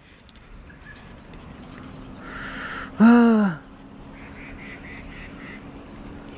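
A short hissing burst, then a man's loud drawn-out exclamation about three seconds in, its pitch rising and then falling. Faint quick chirping follows, about four a second.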